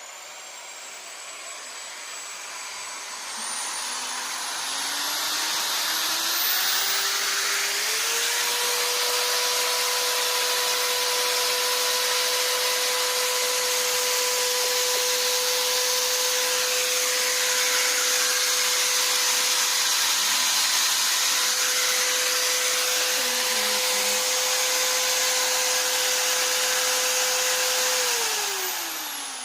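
Electric drill running: its motor whine climbs in pitch as it speeds up over the first several seconds, holds steady at full speed, then falls away as it spins down near the end.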